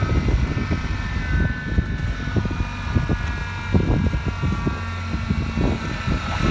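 2011 Ford Ranger engine idling just after a cold start in extreme cold, a steady low running note with a high, steady whine laid over it. The whining comes from the cold-stiffened truck.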